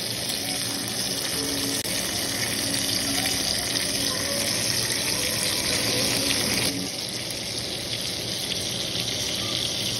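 Steak sizzling in a hot pan: a steady, dense, crackling hiss that eases slightly about two-thirds of the way through.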